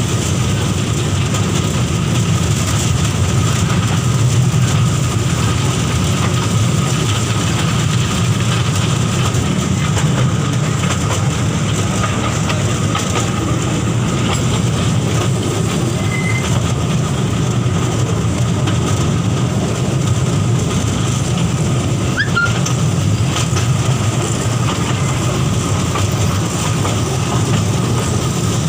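Museum toy train running along its track, heard from aboard: a steady low running noise from the train and its wheels on the rails.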